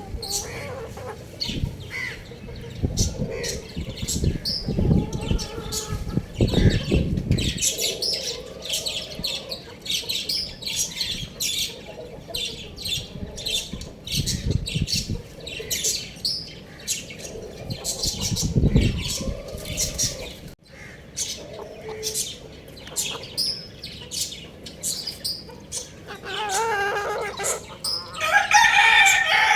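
Young chickens giving many short, high chirps, with some low rumbling in between. Near the end a young rooster starts a longer crowing call.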